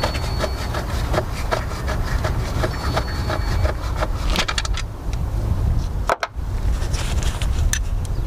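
Hand tools and bolts clinking and knocking irregularly against metal as bolts are taken out of a diesel truck engine's EGR piping, over a steady low rumble.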